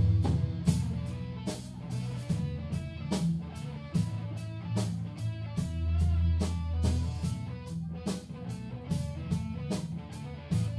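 Live band music: guitar over drum kit and bass, with regular drum and cymbal hits.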